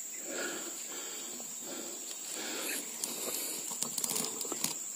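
Steady high-pitched insect drone, with soft rustling and a few sharp clicks close together about four seconds in.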